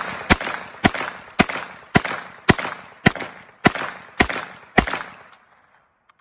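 MKE AP5 9mm pistol, an MP5 clone, fired semi-automatically without a suppressor: about ten evenly paced shots, roughly two a second, each with a short echo tail. The last shot is fainter.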